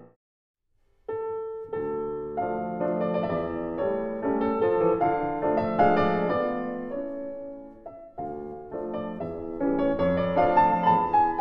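Solo piano music, a contemporary classical piano piece, begins about a second in after a brief silence, with notes and chords ringing over one another and a short lull about eight seconds in.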